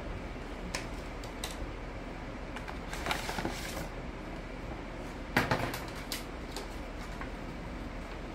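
Picture-card backdrops of a cardboard puppet theatre being lifted out and slotted in: light knocks and rustling, with a rustle about three seconds in and a cluster of louder knocks about halfway through, over a steady low hum.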